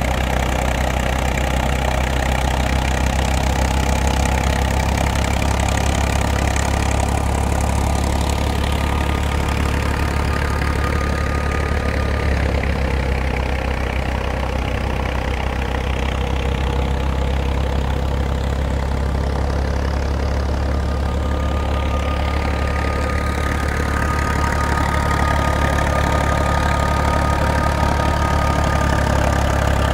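New Holland 480 tractor's diesel engine running steadily, with a faint thin whine above the engine note.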